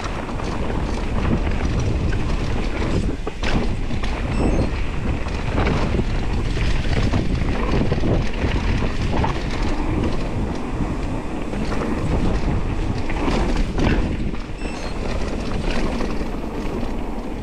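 Wind buffeting the microphone as a mountain bike rolls down a dirt trail, with frequent short knocks and rattles from the bike over bumps.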